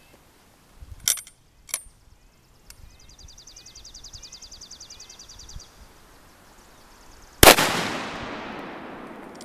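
Two sharp clicks about a second in, then one gunshot about seven seconds in. The shot is from an Ithaca Model 66 Supersingle 12-gauge shotgun firing a cast-bullet handgun handload through a .357 Magnum/.38 Special chamber adapter. Its report rings out and fades slowly.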